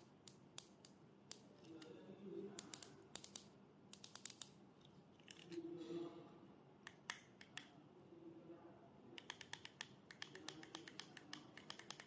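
Small plastic buttons on a handheld heated-insole remote control clicking as they are pressed, quiet single clicks and short runs, with a fast run of clicks near the end.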